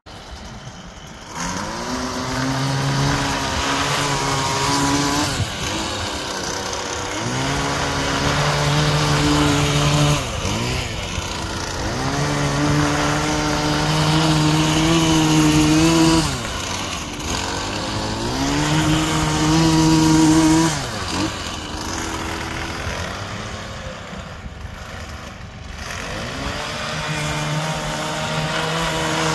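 Small gasoline engine of a power rake used to pull gravel out of a lawn, revved up to full speed and let back down to idle about five times, each burst lasting a few seconds. It runs quieter for a few seconds near the end before revving once more.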